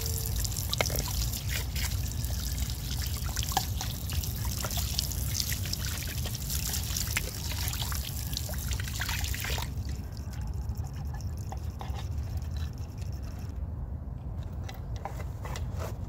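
Water from an outdoor tap running and splashing into a concrete trough as wooden utensils and a wooden cutting board are rinsed under it, with many small splashes and ticks. The running water drops away about ten seconds in, leaving a low rumble.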